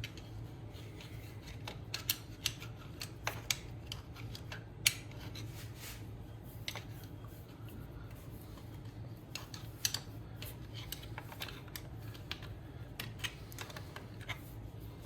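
Irregular sharp clicks and light metallic clinks of hand tools working on a GY6 scooter engine during teardown, the loudest about five seconds in, over a steady low hum.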